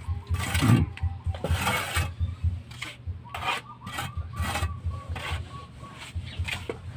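Mason's hand tool scraping and rubbing over a rough cement wall in quick, uneven strokes, several a second.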